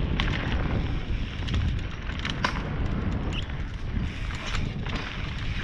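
Wind buffeting the camera microphone over the rumble of mountain bike tyres on a dirt forest trail, with sharp clicks and rattles from the bike over bumps, the loudest a little over two seconds in.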